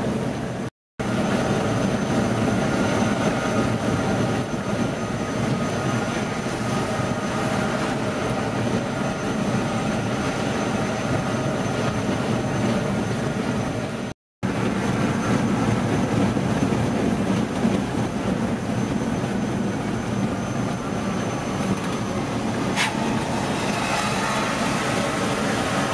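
Scania K410 bus engine running under way with steady road noise and a thin high whine, cut off twice for a moment. A single sharp click near the end.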